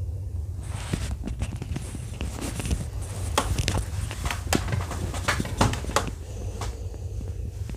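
A sleeping bullmastiff breathing heavily, with a steady low rumble. A run of crackling clicks and rustles lies over it from about a second in until near the end.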